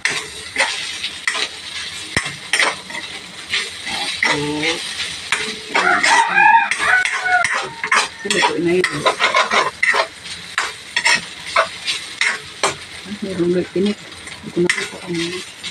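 Spatula scraping and tapping against a stainless steel wok as flaked tuna is stirred in butter, over a sizzle of frying. A brief high-pitched call rises over it about six seconds in.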